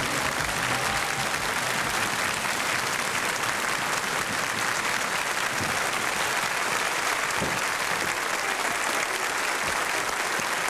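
Studio audience applauding, steady clapping that holds at an even level throughout.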